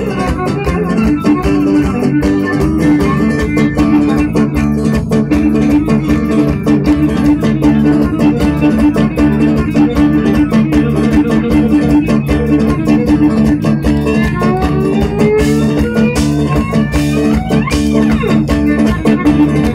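Cretan folk dance music played on plucked string instruments, strummed in a fast, steady rhythm.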